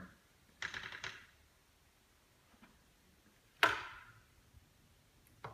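A few scattered knocks and clicks in a quiet, bare room: a short one about half a second in, a louder sharp knock with a brief echo about three and a half seconds in, and a small click near the end.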